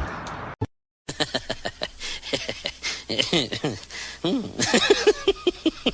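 A person laughing in quick, short bursts after a brief silent cut.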